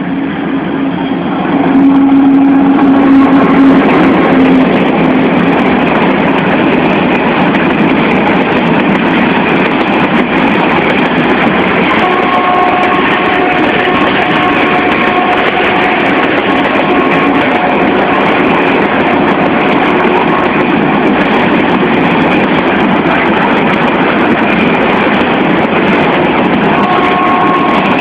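Vietnamese D18E diesel locomotive passing close, then its freight train of boxcars rolling by with a loud, steady rail rumble. The noise rises sharply about two seconds in as the locomotive reaches the crossing, with a low steady tone for the first few seconds, and faint higher tones come and go from about halfway through.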